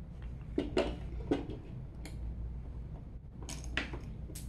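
Light clicks and taps of 3D-printed plastic parts being handled, as press-fit caps are pushed onto the wheel axles of a 3D-printed windup car. The clicks come singly in the first two seconds and in a quick cluster near the end.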